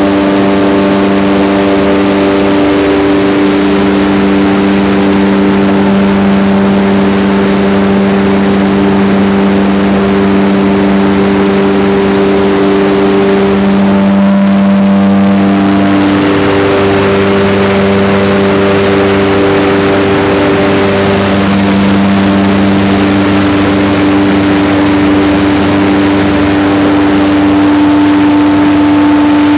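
Mine main ventilation fan running steadily. It makes a loud, constant hum of several pitched tones over a rush of air, and the tones shift a little about halfway through.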